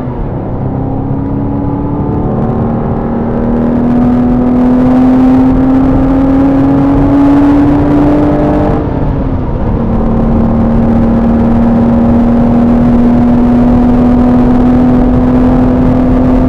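Porsche Boxster's flat-six engine heard from inside the car under steady load on track. Its pitch climbs slowly for most of the first half, drops sharply about nine seconds in as the revs fall, then holds nearly steady.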